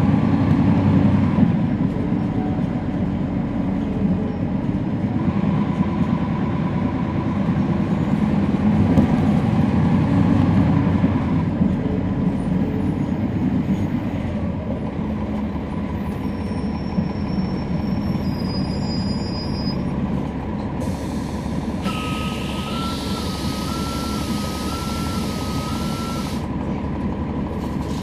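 Interior drivetrain noise of a 2011 NABI 40-SFW transit bus heard from the rear seats: the Cummins ISL9 diesel and ZF Ecolife six-speed automatic transmission running, with the transmission making most of the noise. The drone swells and eases through the first half, then steadies. Later, a hiss with a warbling tone lasts about four seconds.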